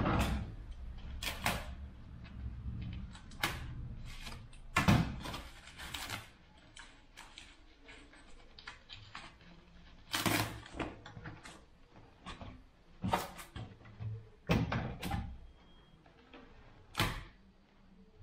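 Protective packaging being pulled off a bicycle frame by hand: plastic and foam wrap rustling and crinkling, cardboard protectors scraping, with a series of irregular sharp handling knocks and crackles every second or few.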